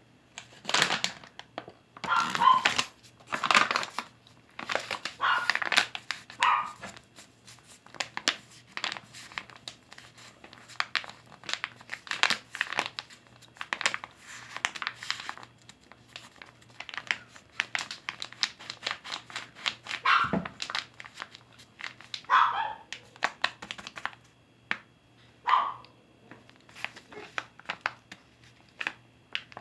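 Dense crinkling and rustling of packaging being handled, with a small dog giving a few short yips or barks.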